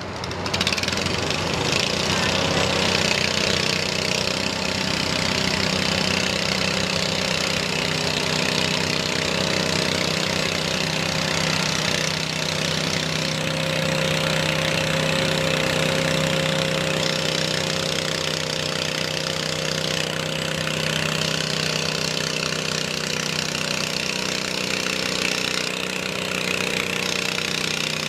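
International Harvester Cub Cadet 104 garden tractor's engine running steadily while hooked to the pulling sled.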